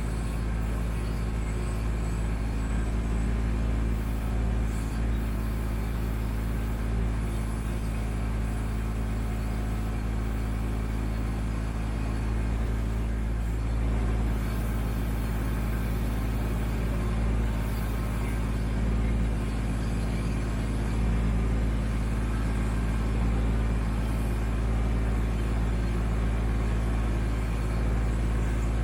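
Kubota B2650 compact tractor's three-cylinder diesel engine running steadily, with no change in pitch.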